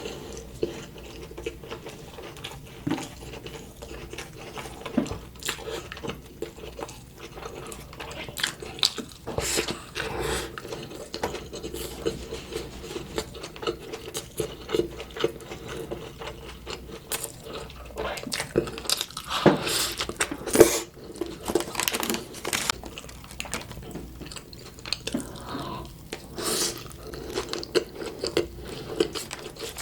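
Close-miked eating sounds: fast-food burgers, nuggets and fries being bitten and chewed, with irregular crunches and wet mouth sounds.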